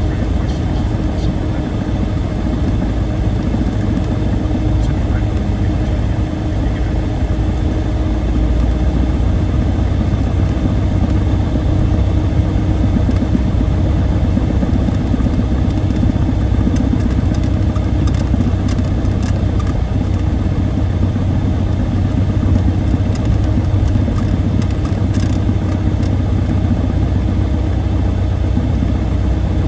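Cessna 172's piston engine and propeller running at low taxi power, a steady drone heard from inside the cockpit, a little louder from about eight seconds in.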